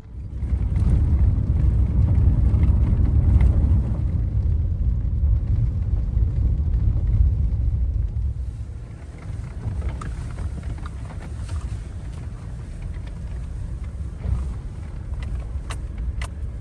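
Wind buffeting the microphone: a loud, gusty low rumble that eases about halfway through, with a few sharp clicks near the end.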